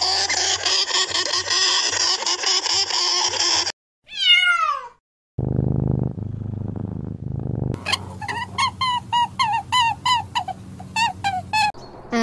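A Syrian hamster squeaking in a fast, noisy chatter. Then an orange tabby cat: one meow falling in pitch, a low rumble, and a quick run of about a dozen short meows.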